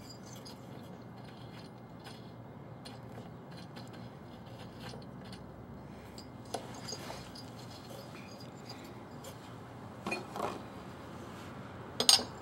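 Light metallic clicks and scrapes as a spark plug is turned by hand in a small mower engine's cylinder head. A few louder clicks come about ten seconds in, and the loudest metal clinks come near the end as a wrench is fitted onto the plug.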